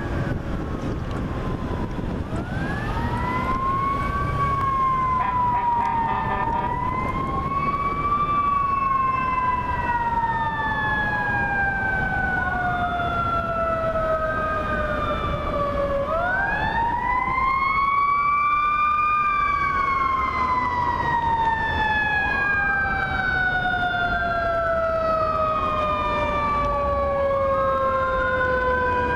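Federal Q mechanical fire-truck siren repeatedly winding up and coasting down: each time the pitch climbs quickly for a second or two, then slides slowly down over several seconds before it is wound up again. Low traffic noise runs underneath.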